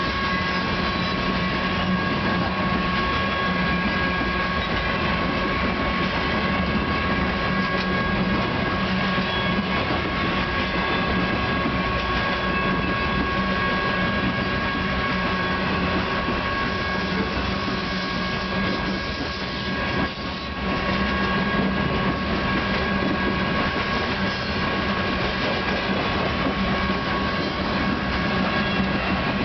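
Freight train's coal hopper cars rolling steadily past, with the rumble and clatter of steel wheels on the rails. A steady high ring runs over it throughout.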